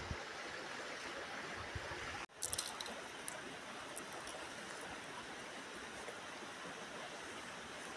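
Shallow stream running over rocks, a steady rushing noise, broken briefly about two seconds in, with a few light clicks and rustles just after.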